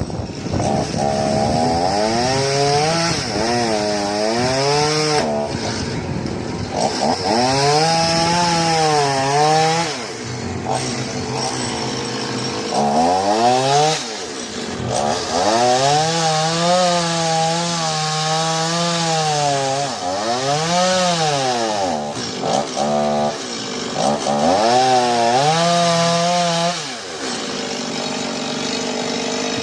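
Chainsaw engine revved up and down over and over, its pitch climbing and dropping about six times, then settling to a steady idle near the end.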